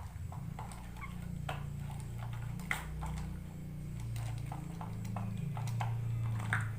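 Scattered light clicks and taps of plastic toys being handled, over a low steady hum.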